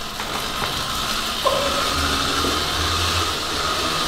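Small two-stroke engine of a cheap mini dirt bike running steadily as the bike is ridden off.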